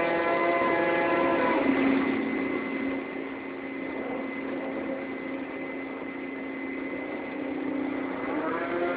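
Ship's deck crane machinery running with a steady hum and a thin high whine. It eases down and gets quieter about two to three seconds in, then holds steady.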